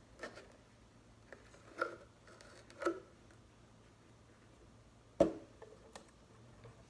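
A quiet room with a few soft clicks and rustles as tape and a plastic bottle are handled, and a sharper click about five seconds in.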